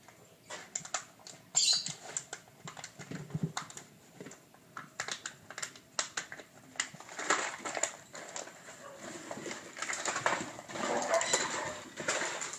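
Seven-week-old puppies playing on a tile floor and hard plastic toys: many small quick clicks and taps of claws and toys, growing into denser scuffling from about seven seconds in.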